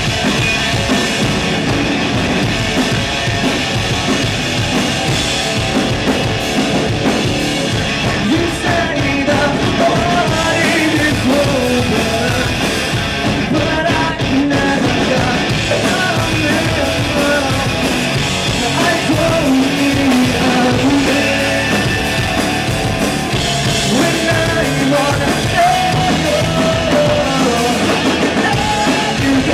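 Live rock band playing loud and without a break: a singer on a microphone over electric guitars and a drum kit.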